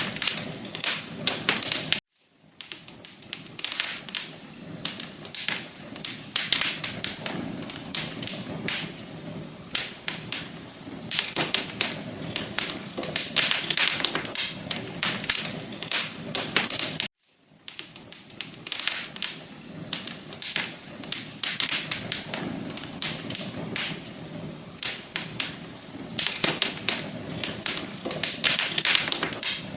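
Wood fire crackling, with dense, irregular pops and snaps over a soft hiss. The sound cuts out briefly twice, about two seconds in and again past the halfway point, and fades back in each time.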